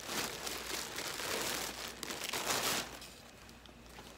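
Plastic bag crinkling and rustling as a garment is unwrapped from it, dying down after about three seconds.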